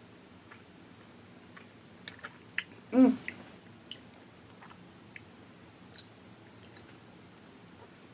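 A child chewing a mouthful of sushi with small wet mouth clicks and smacks scattered throughout. About three seconds in there is a short, louder sound from her voice, the loudest moment.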